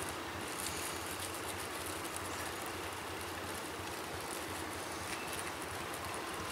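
Steady outdoor background noise, an even rushing hiss with no distinct events.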